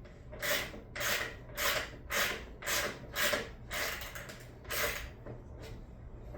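A ratchet wrench rasping in quick, evenly repeated strokes, about two a second, as a bolt is turned over and over; the bolt keeps turning but won't come out.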